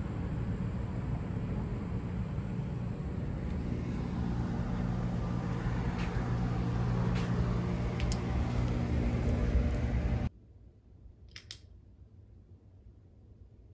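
Air-conditioner outdoor condenser unit running: a steady whooshing hum that grows somewhat louder toward the end of the outdoor part, with a few light clicks. About ten seconds in it cuts off abruptly to a quiet room, where a brief click is heard.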